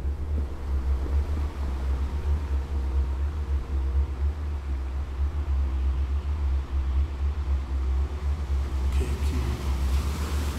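Steady deep rumble that wavers in level, with a short burst of hiss near the end.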